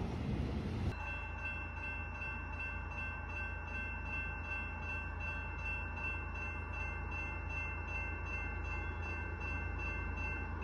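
Railroad grade-crossing warning bell ringing steadily as the crossing gates lower ahead of an approaching train. For about the first second, before a cut, the rumble of a passing autorack freight train is heard.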